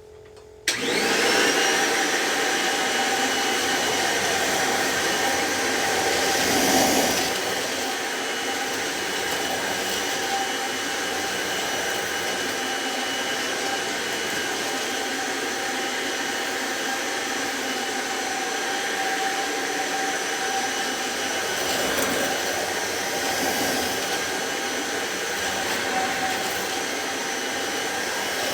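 Kirby G4 Tech Drive upright vacuum cleaner, fitted with its hose and wand, switched on about a second in. Its motor spins up with a rising whine and then runs steadily.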